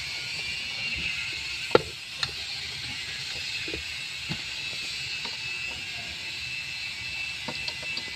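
Several sharp plastic clicks and knocks, the loudest near two seconds in, as an automotive fog-light relay is pushed back into its socket in the relay box. A steady hiss runs underneath.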